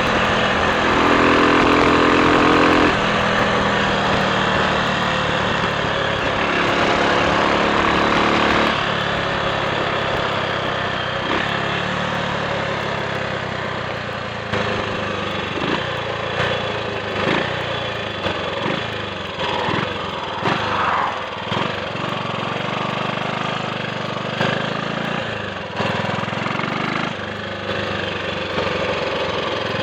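Triumph Sports Cub's single-cylinder four-stroke engine running. It holds a steady note for the first nine seconds or so, stepping in pitch about three seconds in, then drops to a lower, uneven beat for the rest.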